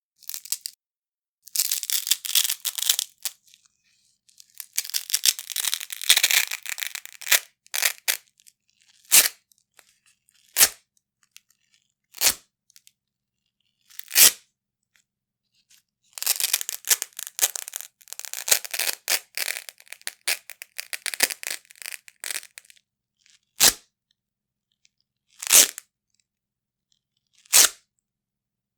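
Large pieces of hook-and-loop Velcro being ripped apart at different speeds: long, slow, crackly rips alternating with single quick tears, with silent pauses between.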